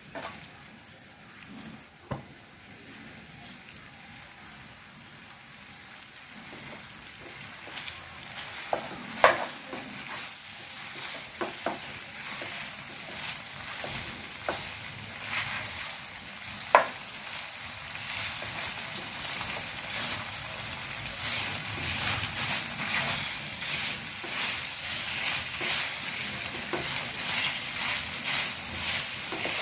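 Khoa (mawa) sizzling in ghee in a nonstick pan while a wooden spatula stirs and scrapes it, with a few sharp knocks against the pan in the first half. The sizzling and stirring grow louder in the second half as the khoa roasts.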